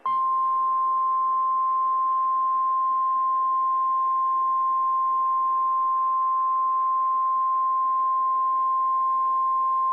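Weatheradio Canada warning alarm tone: one steady high-pitched tone held for about ten seconds over a faint radio hiss. It signals that a severe weather warning is about to be broadcast.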